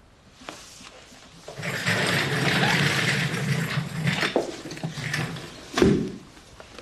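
A wheeled stool rolled and scraped across the floor for about three seconds, with clicks, then a heavy thump near the end as someone sits down on it.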